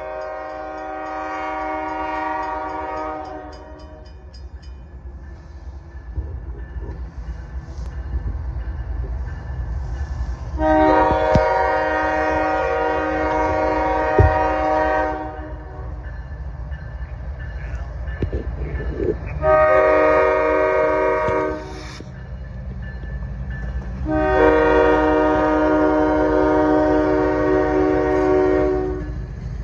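CSX diesel locomotives' air horn sounding four times, long, long, short, long: the grade-crossing signal. Underneath, the low rumble of the light engines grows as they approach and pass close by.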